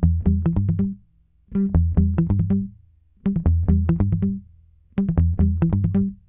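Outro music: a plucked riff over a bass line, played in four short phrases with brief silences between them.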